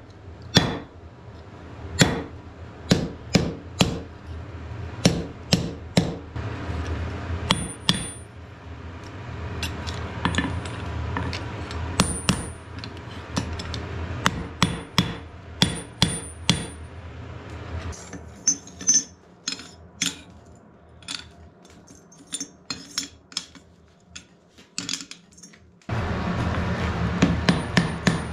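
Hand hammer striking a hot wrought-iron bar on a steel anvil, sharp ringing blows at an uneven pace of one or two a second. Later comes a quieter stretch of lighter taps. Near the end a steady rushing noise starts, and the blows come faster and evenly, about three a second.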